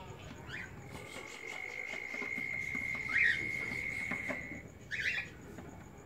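Cockatiel calling with three short chirps, about half a second in, a little after three seconds and near five seconds. Under them a steady high whistle-like tone holds flat for about three and a half seconds.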